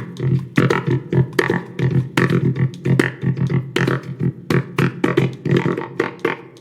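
Homemade cigar box drum with a piezo disc pickup, played by hand through a Korg Toneworks effects pedal set for pitch shifting, echo and plate reverb. Quick, uneven taps, several a second, each coming out as a pitched, ringing electronic tone.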